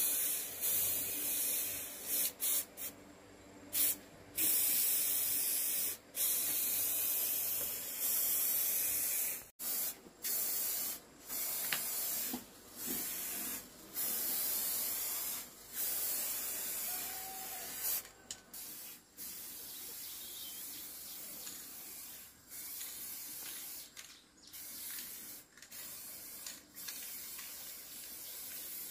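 Aerosol spray-paint can hissing in repeated bursts of under a second to a few seconds, with short breaks between them, as yellow paint is sprayed onto a wooden box.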